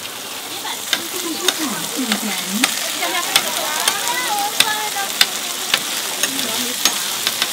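Tofu slabs sizzling in oil on a flat iron griddle, a steady hiss. Over it, a metal spatula taps and scrapes against the plate about once or twice a second as the pieces are flipped and pushed around.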